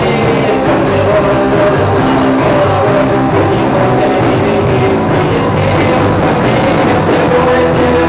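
Rock music with electric guitar playing chords over a full band track.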